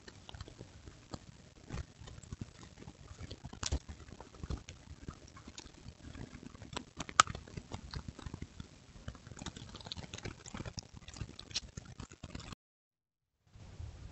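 Coyote feeding at a deer gut pile: irregular crunches, clicks and rustles of bones and dry leaf litter, with one sharp click about seven seconds in. The sound drops out for about a second near the end.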